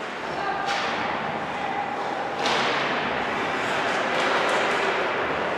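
Two sharp, echoing cracks of puck-and-stick play in an ice hockey game, about two seconds apart, the second louder, over steady arena noise that grows after it.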